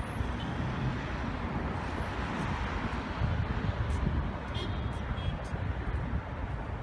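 Steady hum of road traffic with an uneven low rumble underneath.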